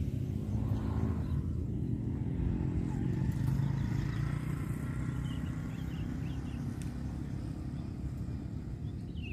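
A motor vehicle's engine running past, a low hum that grows to its loudest about three to four seconds in and then eases off.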